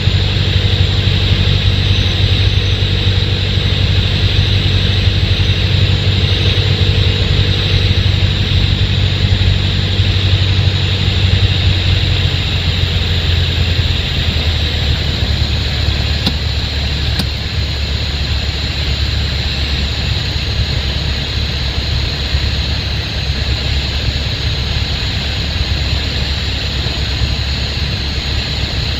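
Cockpit noise of a Piper Archer II's four-cylinder Lycoming engine and propeller, a steady drone with air noise. About halfway through the engine note drops and it gets a little quieter as power comes back for the landing.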